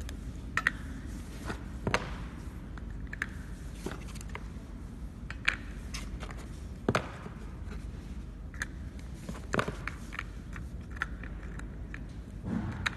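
Automatic labeling machine running with a steady low hum, while hollow white plastic lids click and knock irregularly against each other on its conveyor and in a hand.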